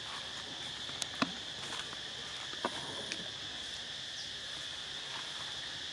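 Insects, crickets or cicadas, droning steadily in a high even pitch. Three short sharp clicks or snaps cut through it in the first three seconds, the loudest just over a second in.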